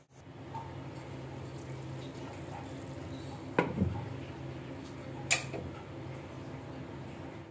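Chicken curry simmering in a covered pan under a glass lid: a steady low bubbling, with two sharp clinks, one about halfway through and a louder one about two-thirds through.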